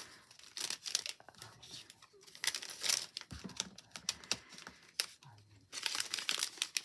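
Clear plastic packaging sleeve crinkling and rustling in the hands as paper ephemera pieces are handled inside it, in irregular crackles that grow denser near the end.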